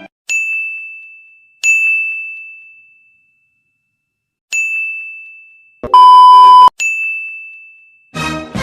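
A bright, single-pitched 'ding' sound effect strikes four times, each ring fading away over a second or two. Between the third and fourth dings comes a very loud steady beep lasting just under a second. Near the end a crackly burst of noise begins.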